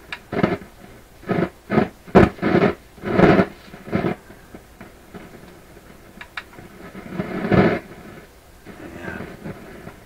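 Irregular crashes of noise from a PYE 39HC valve radio's loudspeaker: several short bursts in the first few seconds, then a longer one near the end. The repairer suspects the volume control may be causing them.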